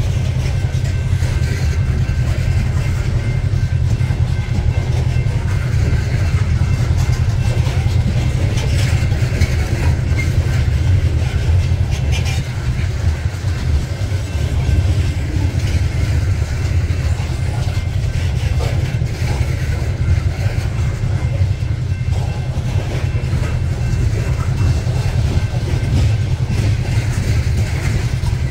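Freight train of coal hopper cars rolling past close by, a steady low rumble of steel wheels on rail that keeps on without a break.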